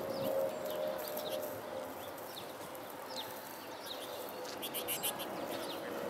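Small songbirds chirping: many short, high, quick downward chirps scattered throughout, with a brief scratchy burst about five seconds in.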